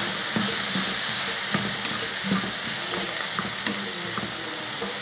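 Diced carrots and green beans with onion sizzling in oil in a kadai while a spatula stirs them, giving a steady frying hiss with scattered scrapes and taps of the spatula against the pan.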